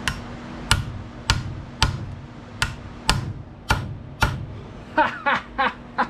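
Hammer blows on a cold chisel driven into the hot-side (turbine) housing of a Ford 6.0 L diesel turbocharger, about eight sharp strikes roughly half a second apart, then a quicker flurry of lighter ringing taps near the end.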